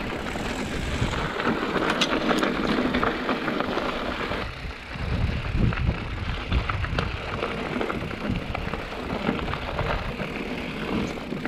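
Mountain bike rolling fast over a rocky dirt singletrack: tyres crunching on loose gravel and the bike rattling and clicking over the bumps, with a constant low rumble of wind on the handlebar camera's microphone.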